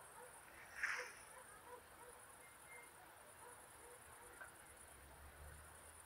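Faint chorus of crickets in the grass, a steady high-pitched trill, with one brief louder sound about a second in.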